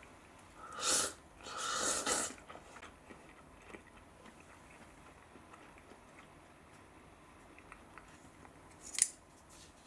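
A person slurping instant cup noodles, two slurps close together about a second in, then faint chewing. A short sharp click near the end.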